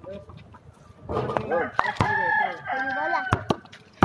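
A rooster crowing once, about a second in: a curving call that ends in long held notes lasting about two seconds. A few sharp knocks sound during the crow.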